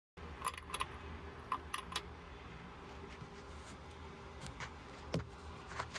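Scattered sharp metallic clicks, in small groups of two or three, from a socket wrench with a 30 mm socket being worked on the oil filter bolt of a jet ski engine's oil cooler. A low steady hum runs underneath.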